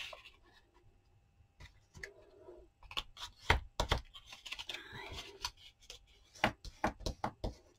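Paper being folded and creased with a bone folder on a tabletop: short scraping and rustling strokes between sharp taps and clicks.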